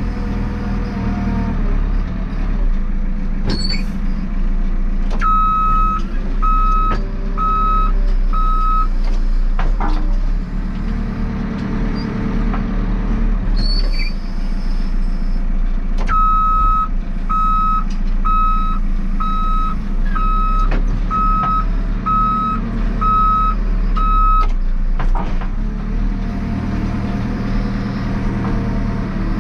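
JCB 3CX backhoe loader's diesel engine running under varying load, with its reversing alarm beeping in two runs: four beeps about five seconds in, then nine more from about sixteen seconds. A few sharp knocks come between the runs.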